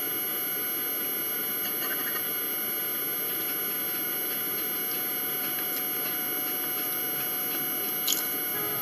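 Steady background hum and hiss of room noise, with faint scattered clicks and one sharper click about eight seconds in.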